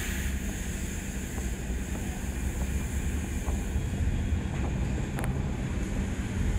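Street traffic: a low, steady engine rumble from a small car creeping toward the microphone and other vehicles idling nearby, getting slightly louder in the second half.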